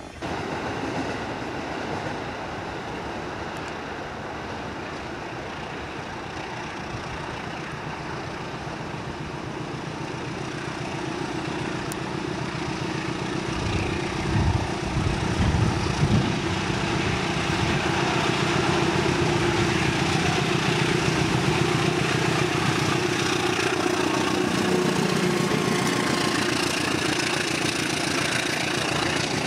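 A train running on the line, its noise growing louder over several seconds and then holding steady, with a steady hum.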